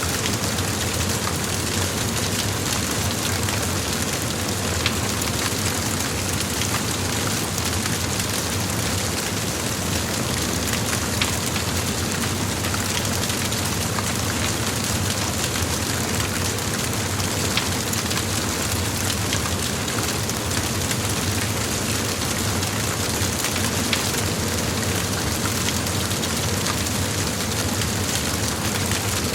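Large fire blazing: a steady roar with scattered crackles and pops.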